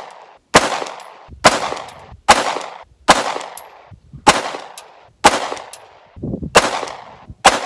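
Glock pistol fitted with a TK threaded aftermarket barrel, firing eight aimed shots at a steady pace of about one a second, each sharp report trailing off in a short echo.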